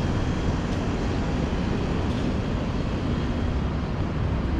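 Steady low rumble of city traffic, an even noise without distinct events.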